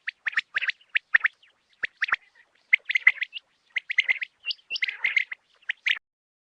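Quail calling: a rapid, irregular run of short, sharp chirps that cuts off about six seconds in.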